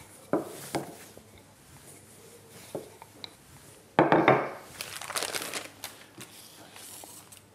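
Intermittent rustling and rubbing as puff-pastry dough is rolled out and handled on a floured work surface, with a few small knocks; loudest about four seconds in.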